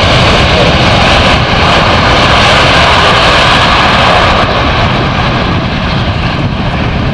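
Airbus A380 jet airliner passing close on its landing approach: a loud, steady rush of jet noise that eases a little about four seconds in.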